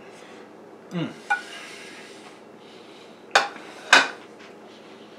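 Dishes clinking on a table: a short clatter about a second in, then two sharp clinks about half a second apart near the middle.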